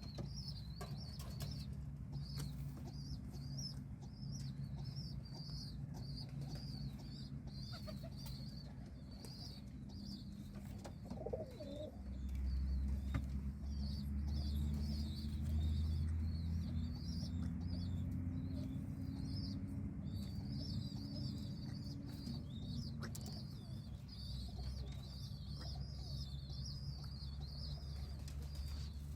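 A pigeon with a breathing problem, heard as a high, quickly repeating wheezy chirping throughout, over a low steady rumble that is louder for about ten seconds in the middle.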